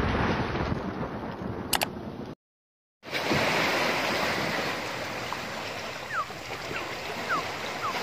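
Seawater surging and washing among shore rocks, a steady rushing wash that starts about three seconds in after a brief dead silence. Before the silence, a loud noisy sound fades away, with a single click.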